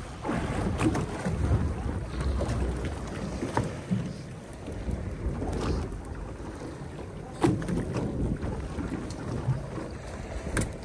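Wind buffeting the microphone on a small fishing boat at sea, with a few sharp knocks scattered through.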